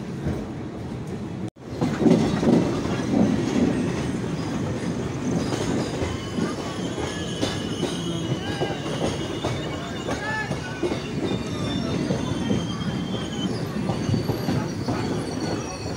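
An express train passing on the adjacent track, heard through a train window: a steady rumble and clatter of wheels on rails, with high, drawn-out wheel squeals in the second half. The sound breaks off abruptly about a second and a half in and resumes at full loudness.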